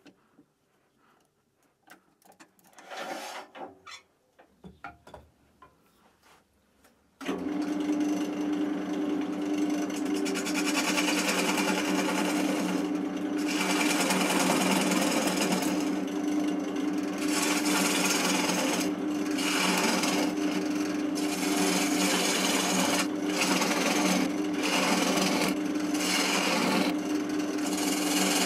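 Small clicks and knocks of an oak blank being fitted to a wood lathe's chuck. About seven seconds in, a steady lathe hum starts abruptly, with a bowl gouge cutting into the spinning oak. The rasping of the cut comes and goes in strokes.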